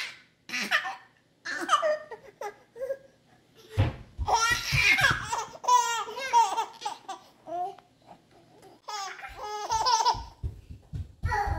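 A baby laughing in several bursts of high-pitched giggles separated by short pauses, with one longer run of laughter in the middle.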